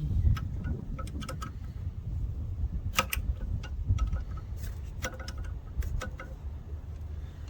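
Hand tools clinking and clicking against metal in scattered, irregular taps, the sharpest about three seconds in. Steady wind rumble on the phone's microphone underneath.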